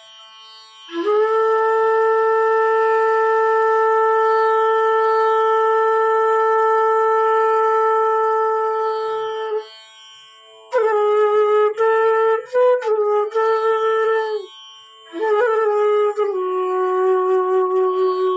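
An A bass bansuri (bamboo flute) played over a tanpura drone tuned to A: one long held note of about nine seconds, then a short phrase of several quick notes, then another phrase that settles on a lower held note near the end.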